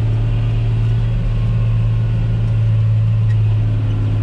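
John Deere 8100 tractor's six-cylinder diesel engine running steadily under load, heard from inside the cab while it pulls a disc harrow through wet stubble.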